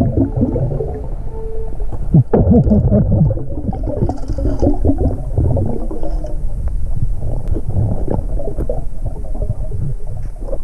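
Muffled underwater gurgling and low rumbling, with irregular bubbling that is strongest a couple of seconds in, from a diver's exhaled air bubbling out of a hookah regulator while hands stir the sand.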